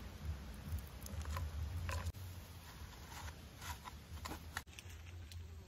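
Charcoal crumbled by hand and dropped into a cut plastic bottle: scattered small crackles and patters, a few a second, over a low steady rumble.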